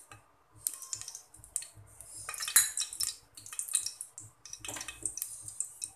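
A metal spoon clinking and scraping against the inside of an aluminium pressure cooker in a run of short, irregular knocks, as ghee is spooned into the pan.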